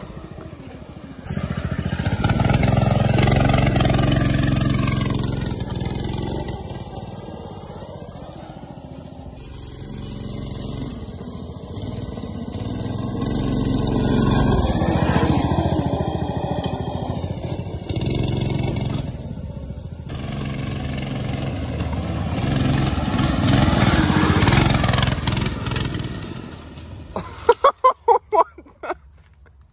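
A Predator 212cc single-cylinder four-stroke engine on a mini bike revving up and down as it is ridden, its sound swelling and fading several times. Near the end comes a short run of loud, rapid pulses.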